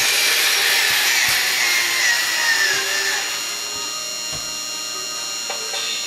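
Radio-controlled model Mack dump truck's electric drive motor and gearbox whining as it drives past, the pitch sliding down and the whine dropping away about three seconds in as the truck slows to a stop.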